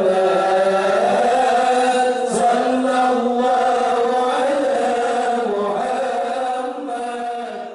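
A group of women chanting an Islamic devotional song together in unison, in a slow, drawn-out melody. The chant grows quieter near the end.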